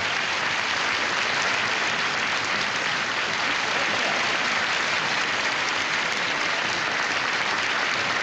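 Audience applauding: dense, steady clapping that holds at one level throughout.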